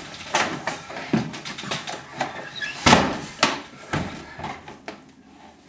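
A large sheet of paper being handled and crumpled, with a dense run of irregular crackles and rustles. It is loudest about three seconds in and thins out toward the end.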